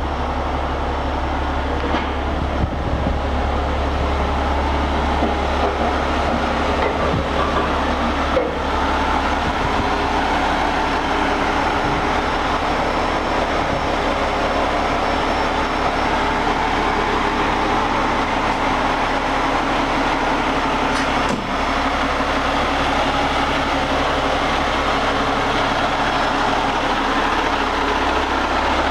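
2016 Peterbilt 389 truck tractor's diesel engine idling steadily.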